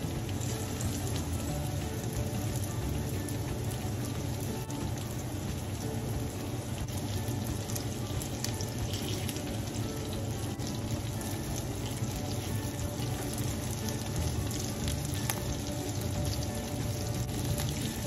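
Ground-meat meatballs sizzling steadily in oil in a nonstick frying pan, with a few light taps of a fork against the pan as they are turned. Soft background music runs underneath.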